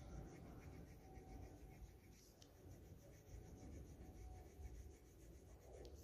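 Faint scratching of a coloured pencil shading on paper in quick, even back-and-forth strokes, with a short click near the end.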